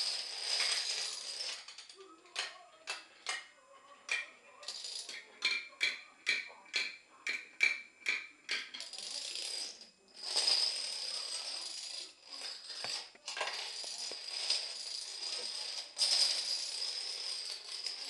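Plastic toy dominoes toppling in a chain on a wooden floor: a dense, rapid clatter that breaks into separate clacks, a few a second, for several seconds in the middle before the dense clatter resumes.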